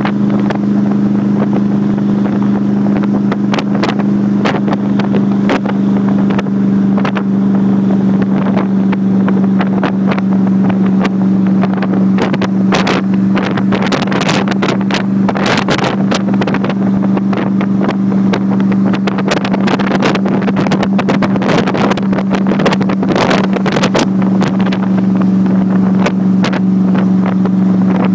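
Shelby Cobra roadster's V8 engine running at a steady cruise, a constant low drone that holds one pitch, with wind buffeting the microphone in gusts, heaviest around the middle.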